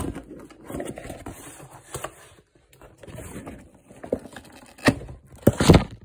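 Cardboard box and paper packaging being handled: irregular rustling, scraping and knocking, with a few loud thumps near the end.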